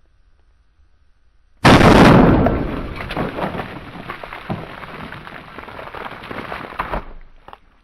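A single loud explosion boom about a second and a half in, rumbling and crackling as it dies away over about five seconds.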